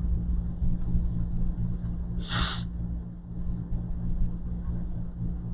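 A steady low hum, with one short, sharp rasp about two seconds in.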